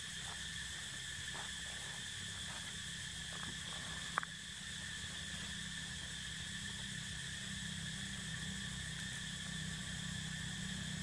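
Steady high-pitched drone of forest insects in several pitches at once, over a low rumble, with a few faint ticks and one sharp click about four seconds in.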